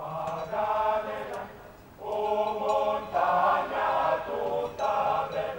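A group of voices singing long held notes together in about three phrases, with short breaks between them.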